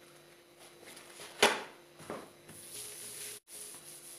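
Handling noises on a granite kitchen countertop: a sharp knock about a second and a half in, a lighter knock shortly after, then faint rubbing as a hand wipes across the counter.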